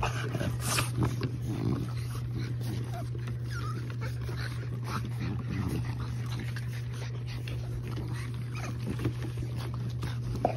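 French Bulldog puppies and an adult French Bulldog playing and sniffing, with small whimpers and short yips here and there over a steady low hum.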